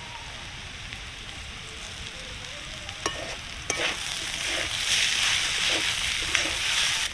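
Beetroot, carrot, peas and boiled potato sizzling in a metal kadai. About three seconds in a spatula knocks twice against the pan, then stirs and scrapes through the mix, and the sizzling grows louder.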